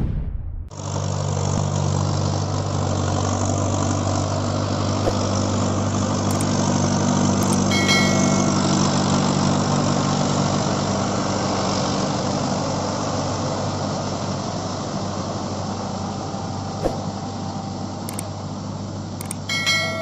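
A short whoosh ends under a second in, then a Mahindra Arjun Ultra 555 DI tractor's four-cylinder diesel engine runs steadily under load as the tractor works through a muddy, flooded paddy field.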